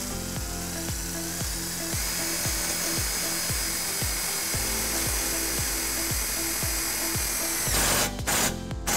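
Power drill driving self-tapping screws, running steadily for about eight seconds, then stopping and giving a few short bursts near the end. Background music with a steady beat plays underneath.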